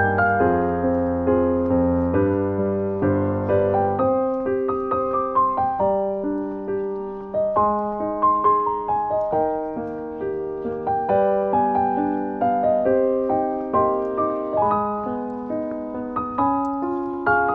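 Background piano music: a slow, gentle melody of single notes over soft chords.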